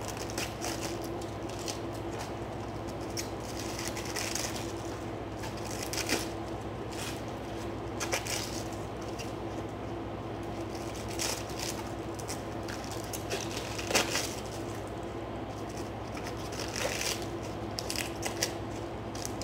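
Iceberg lettuce leaves being torn off the head by hand: irregular crisp snaps and crackles as each leaf breaks away, the sharpest about two-thirds of the way through. A steady hum runs underneath.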